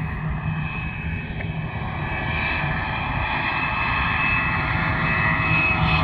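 Boeing 717-200's two rear-mounted Rolls-Royce BR715 turbofans at takeoff thrust on the takeoff roll. A jet whine of several steady tones sits over a low rumble and grows steadily louder as the jet approaches.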